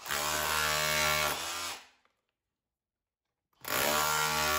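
Makita SDS rotary hammer chiselling out plaster and brick for a socket box recess. It runs in two bursts: one of about two seconds, then a pause, then a second burst starting a little past halfway.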